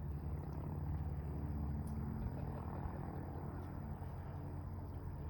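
A steady low motor hum, even throughout.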